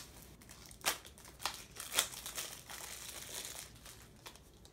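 Toy blind-pack packaging crinkling and rustling as it is handled and torn open, with sharp crackles about one, one and a half and two seconds in and a denser stretch of crinkling after.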